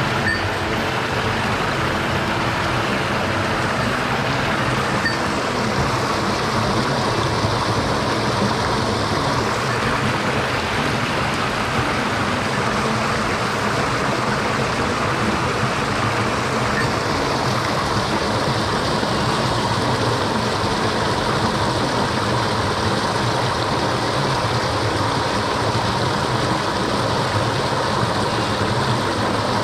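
Steady rush of a mountain stream's flowing water running over rocks, a constant even noise.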